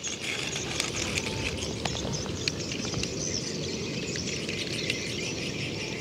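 Steady high-pitched outdoor hiss with a few faint light clicks as a small toy car is picked up off loose rock and handled.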